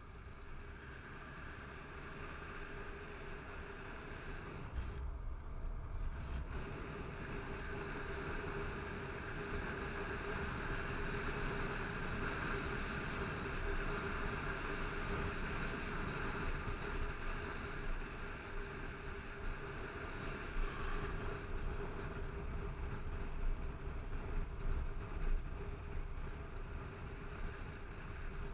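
Wind rushing over a helmet-mounted camera with a motorcycle engine running underneath while riding on a road. It grows louder over the first ten seconds as the bike picks up speed, dips briefly about five seconds in, then holds steady.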